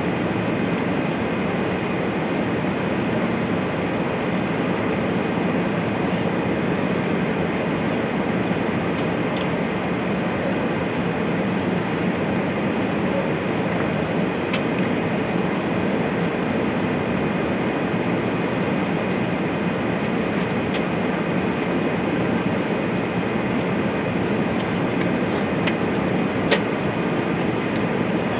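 Steady cabin noise inside an Airbus A380-800 on final approach, heard at a window seat over the wing: an even rush of airflow and engine sound. A few faint clicks come through, the clearest near the end.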